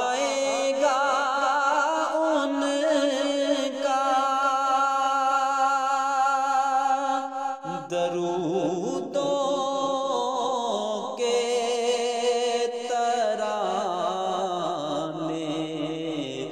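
A naat, an Urdu devotional song, sung in long drawn-out notes with a wavering vibrato. About halfway through, the singing drops into a lower register.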